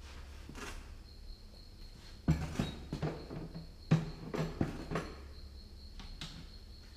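Hollow knocks and clatter of a white 5-gallon plastic bucket being handled and set down on a concrete floor, a few separate knocks, over a faint steady hum and a thin high whine.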